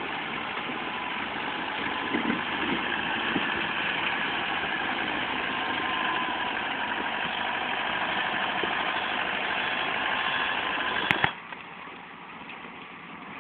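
Motor grader's diesel engine running steadily up close as it works its blade. About eleven seconds in, the sound cuts off abruptly with a click, and the engine is then heard much fainter.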